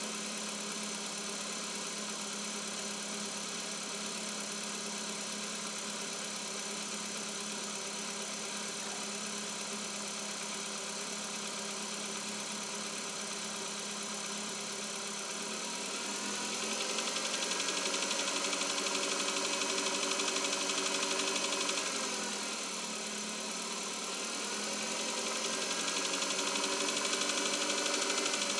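2021 Chevrolet Cobalt's 1.5-litre four-cylinder petrol engine idling steadily, then revved up twice and held a few seconds each time. It is running cold, with the knock the owner hears on an engine that has not warmed up.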